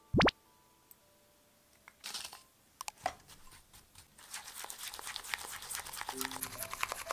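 A short falling-pitch blip at the start. Then a brief rustle and a few clicks as egg yolk and cane sugar go into a glass bowl. From about four seconds in, a rubber spatula scrapes and clicks rapidly against the glass bowl, mixing them, over soft background music.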